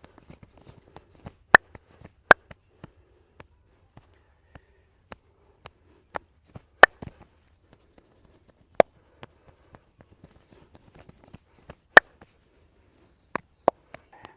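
A fast percussive massage: a steady run of light, sharp slaps at about two a second, with several much louder smacks now and then.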